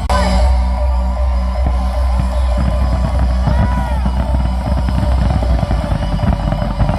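Loud music from a fireworks show's soundtrack with a heavy steady bass, joined from about two and a half seconds in by rapid crackling and pops of fireworks.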